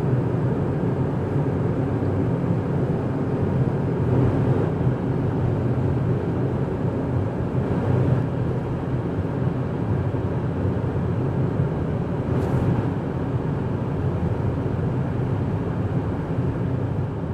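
Hoover Dam power plant's hydroelectric turbine-generators running: a loud, steady drone.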